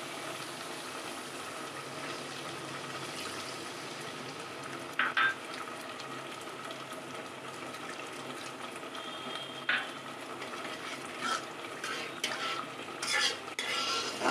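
Onion-tomato spice masala sizzling steadily in a kadai just after water has been added to the hot oil, sending up steam. A flat metal spatula stirs and scrapes it, knocking against the pan once about five seconds in, again near ten seconds, and several times near the end.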